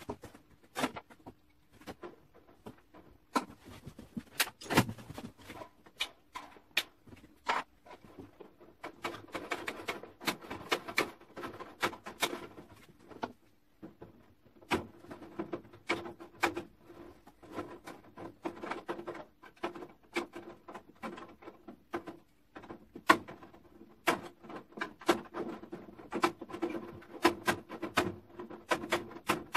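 Chicken-wire mesh being handled and worked at the edge of a wooden planter: irregular sharp clicks and rattles, with a faint steady hum underneath.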